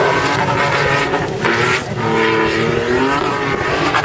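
Toyota Land Cruiser engine revving hard as the SUV slides sideways through dune sand, its pitch rising and falling, easing briefly a little before two seconds in and then climbing again.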